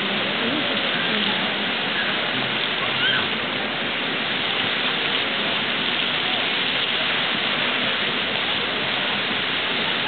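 Fountain water splashing steadily: jets spraying up and falling back, and water sheeting down the sides of the basin into the pool.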